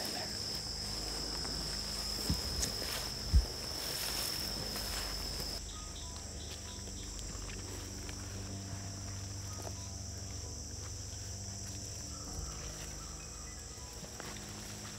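Insects trilling in a steady, high, continuous chorus. The lower of two trilling tones stops abruptly about a third of the way through while the higher one goes on. Two short knocks sound about two and three seconds in, the second the loudest.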